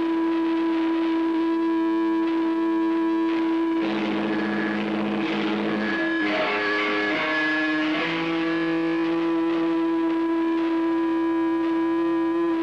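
Distorted electric guitar through an amplifier holding a steady droning note, with other notes shifting over it and a busier, noisier stretch in the middle.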